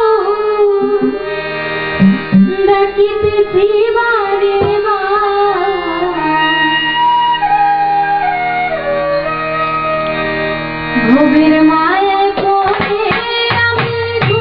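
A woman singing a song into a microphone over instrumental accompaniment. Midway her voice gives way to a short instrumental passage of held notes, and drum strokes come in near the end.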